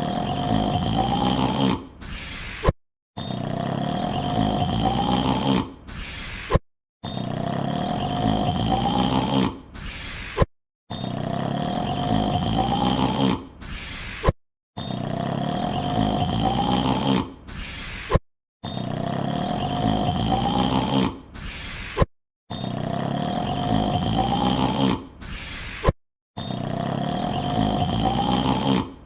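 Superman's loud yawn, a long drawn-out yawn of under three seconds rising in pitch, looped over and over: it repeats about every four seconds, each time broken by a short silence and a brief sound before the next yawn.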